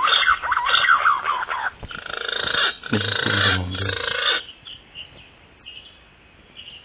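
Green pigeons calling: quick, wavering whistled notes for the first second or two, followed by about two seconds of rustling noise.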